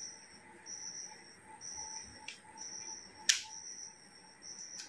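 A few sharp clicks from a Sony A7 III camera body being handled, the loudest a little over three seconds in. Behind them a cricket chirps high and steady, about once a second.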